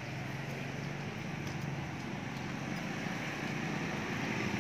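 Street traffic: a motorcycle engine running with a steady low pulsing, growing louder near the end as it approaches.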